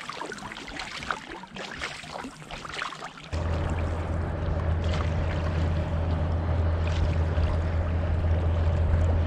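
Paddle strokes and small waves splashing against a folding touring kayak. About three seconds in, the sound gives way suddenly to a louder, steady low rumble.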